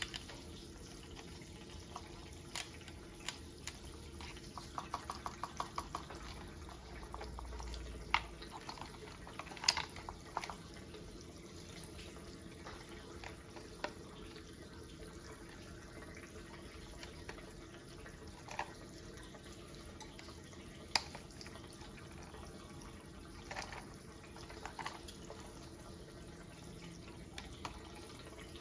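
Scattered clicks and taps of plastic toy parts being handled and fitted together, with a quick run of about a dozen clicks around five seconds in, over a steady faint hiss.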